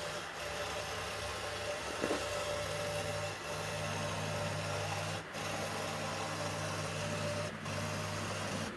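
Scroll saw running, its reciprocating blade cutting through a wooden panel. It makes a steady low hum that dips briefly a few times.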